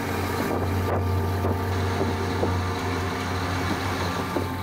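Snowstorm wind blowing across the microphone: a steady low rumble under an even rushing noise.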